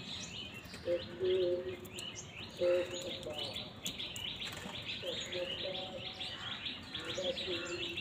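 House crows cawing while feeding: several drawn-out caws, each under a second, about a second in, near three seconds, around five and near seven seconds. Constant high chirping of smaller birds runs underneath.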